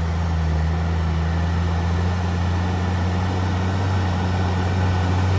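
An engine running steadily with a low, even hum that holds its pitch throughout.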